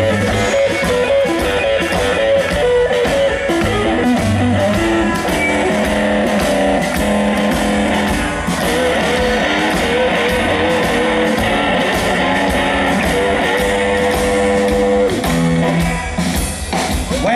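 Live blues band: an electric guitar plays lead lines over upright bass and a steady drum beat.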